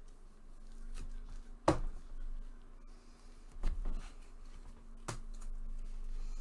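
Trading cards and their packaging being handled on a table: four short clicks and knocks, the loudest about two seconds in, over a faint steady hum.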